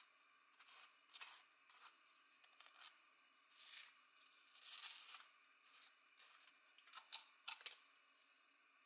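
Faint scraping of a knife spreading a soft topping across bagel halves: a dozen or so short, irregular scrapes, a few of them longer strokes.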